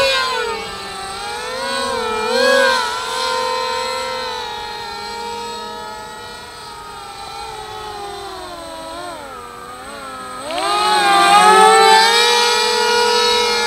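Three brushless electric motors and propellers of a foam RC Su-30 model, whining together in an air-raid-siren wail whose pitch swings up and down with the throttle. The sound sinks lower and quieter through the middle, then climbs sharply in pitch and loudness a few seconds before the end.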